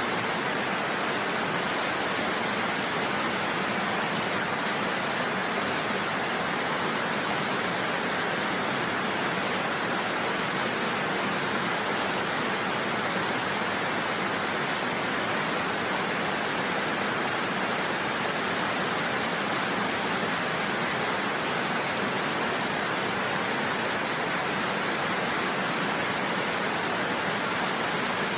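Steady rushing water, like a waterfall or fast stream: an even, unbroken hiss with no separate splashes or drips.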